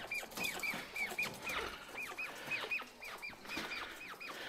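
Caged Japanese quail chirping, several birds at once: a quick run of short, high, down-curving notes, about four or five a second, with light rustling among them.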